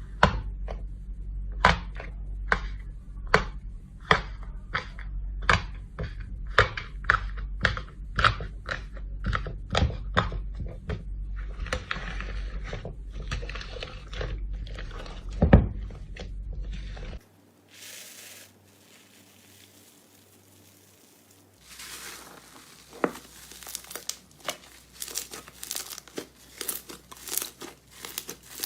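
Slime being squeezed and pressed by hand: sharp clicking pops about once a second over a low hum. After a sudden break, quieter for a few seconds, it turns to dense, rapid crackling.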